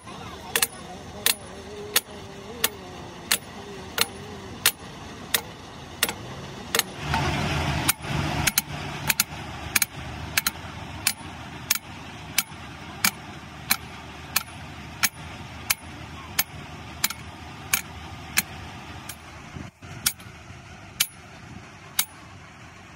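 Steady, evenly spaced hammer blows, about one and a half a second, of a sledgehammer on a steel drift set against a large roller bearing on a jaw crusher shaft. The bearing is being driven along the shaft. About a third of the way in, a louder rumbling noise swells for a second or two under the blows.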